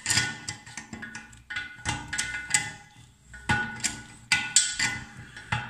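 Steel slip-joint pliers clinking on the nut and threaded mounting bolt of a wall-hung toilet as the nut is tightened: irregular sharp metallic clicks, sometimes several a second. Some strokes are followed by a brief ringing.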